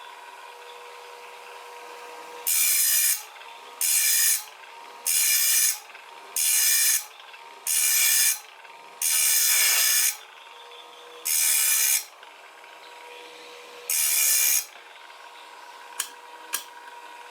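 Wipro PPM-03 sharpening machine's grinding wheel running with a steady hum and grinding a circular saw blade's teeth, eight short grinding passes of about a second each, one of them longer near the middle. Two sharp clicks near the end.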